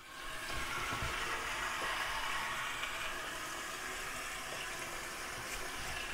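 Water rushing steadily out of newly plumbed pipe, an even hiss.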